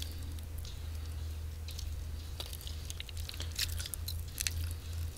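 Fingers pushing raw chicken meat and skin down a wing bone: soft wet squelches and crackles, coming thicker in the second half, over a steady low hum.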